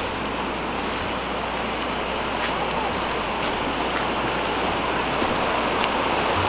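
Shallow mountain stream rushing steadily over boulders and rocks, growing slightly louder towards the end.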